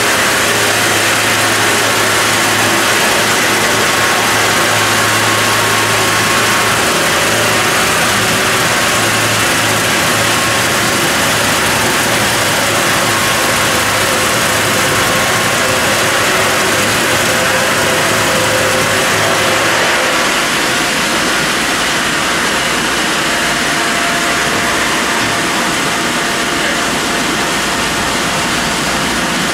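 Horizontal bandsaw mill running steadily as its blade cuts through a squared log. About two-thirds of the way through, a low hum drops out and the sound eases slightly.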